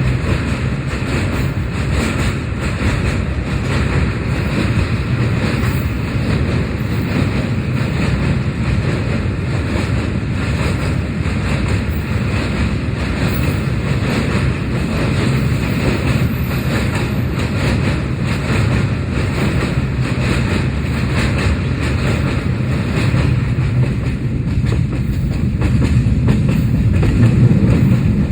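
Train running on its rails: a steady heavy rumble with wheels clattering, growing a little louder near the end.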